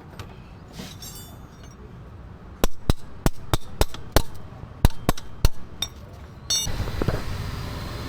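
About ten sharp metallic knocks and taps over roughly three seconds as a motorcycle wheel is refitted, metal tool striking metal. A steady rushing noise starts suddenly near the end.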